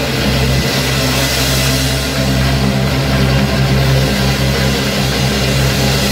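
Live blues-rock band playing loudly: a Stratocaster-style electric guitar over bass guitar, with low notes held steady.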